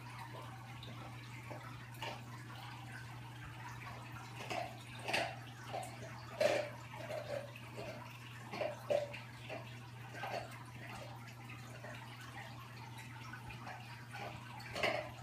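Aquarium water trickling and splashing in short, irregular gurgles, over a steady low hum.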